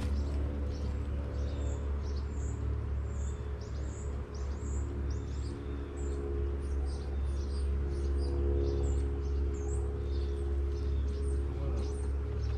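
Honeybees buzzing around an opened hive, a steady low hum with wavering tones, while small birds chirp over and over.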